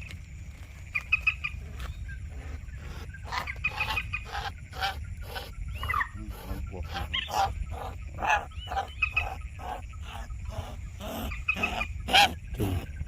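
Common moorhen calls: a string of short, harsh, repeated croaking notes, several a second, over a steady low rumble.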